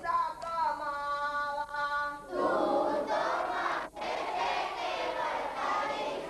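Children singing a devotional prayer in unison. About two seconds in, a larger crowd of voices joins, denser and louder, with a momentary dropout near four seconds.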